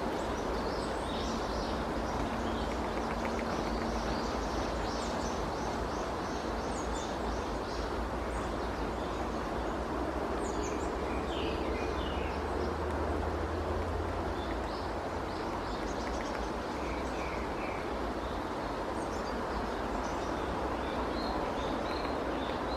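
Steady rushing background noise, with many short, high bird chirps and calls scattered over it.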